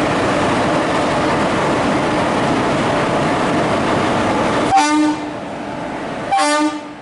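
A train's loud, steady running noise cuts off abruptly, followed by two short Indian Railways locomotive horn blasts about a second and a half apart: the 'pom pom' honk.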